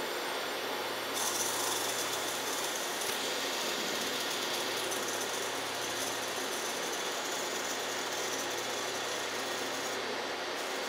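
Steady mechanical running and hiss of a high-pressure air fill charging a Brocock Bantam air rifle's reservoir through its quick-connect fill probe, towards 250 bar, to test that the newly fitted firing valve holds without leaking.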